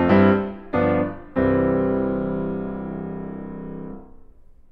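Solo piano music ending: a few struck chords, then a final chord left to ring and die away, fading out about four seconds in.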